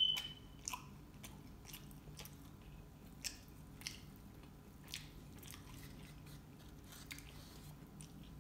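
A person chewing chicken wings close to the microphone: soft, wet mouth clicks and smacks come every second or so, and the sharpest click falls right at the start.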